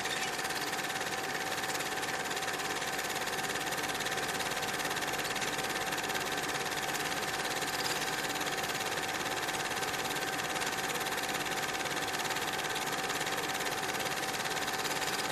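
Steady mechanical whirring over an even hiss, with a constant mid-pitched hum that never changes.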